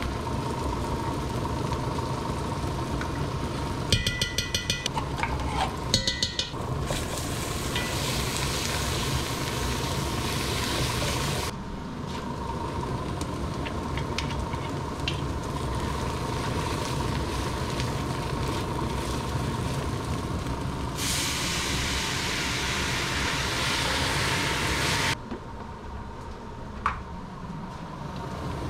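Onions, garlic and tomato paste sizzling in oil in a Dutch oven as a wooden spoon stirs. About four and six seconds in, two short runs of rapid metal scraping come from a spoon digging tomato paste out of a small can. Near the end the sizzle gets quieter, and there is a single knock.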